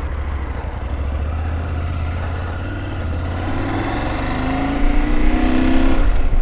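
KTM 790 Adventure's 799 cc LC8c parallel-twin engine running steadily, then revving up as the bike pulls away, its note rising for a few seconds and breaking off about six seconds in. Wind rush builds on the microphone as it gathers speed.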